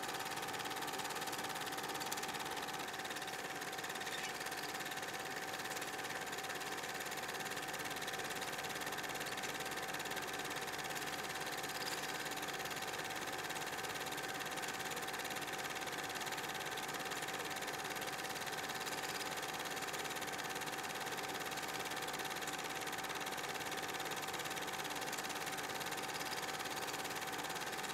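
A steady mechanical whirring hum with a constant high tone over hiss, unchanging throughout.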